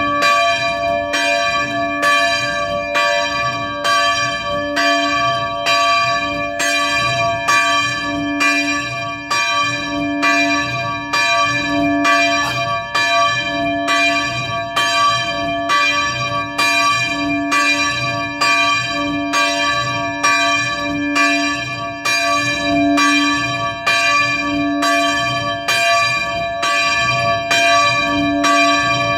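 Church bell ringing the evening prayer bell, struck in an even rhythm of about one stroke a second, each stroke's ring and deep hum carrying into the next.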